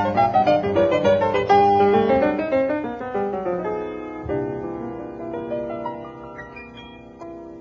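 Instrumental background music led by piano, fading out gradually.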